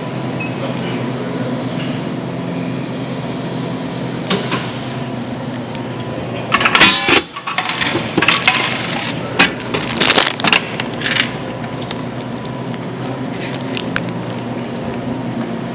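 Steady car cabin hum, with a run of crinkling and crackling from plastic packaging being handled from about halfway in.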